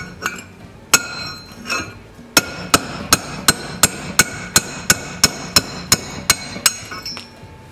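A hammer striking a long steel punch to drive a worn bushing out of its housing. There are two single blows, then a steady run of about a dozen ringing metal-on-metal strikes, roughly three a second, that stops shortly before the end.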